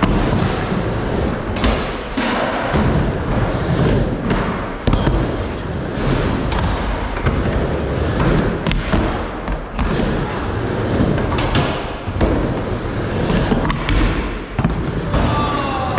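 Skateboard wheels rolling over wooden ramps, with repeated thuds and knocks of the board landing and striking the ramp surfaces.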